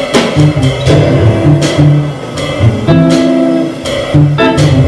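Live jazz guitar trio playing: a hollow-body electric guitar comping chords over a plucked upright double bass, with drum and cymbal strikes.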